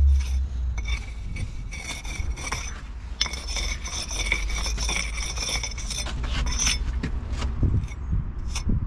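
Steel jointing iron scraping along fresh mortar joints in brickwork: repeated scratchy strokes with a thin, high squeak.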